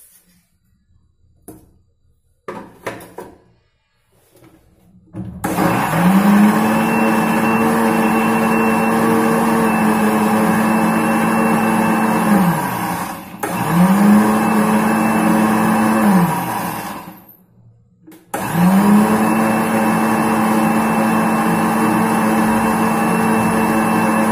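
Electric mixer grinder with a small steel chutney jar grinding beetroot pieces in water, run in three bursts. Each run starts with a rising whine that settles into a steady hum and winds down when switched off. The first run lasts about seven seconds, the second about three, and the third about six. A few knocks come first as the jar is set in place.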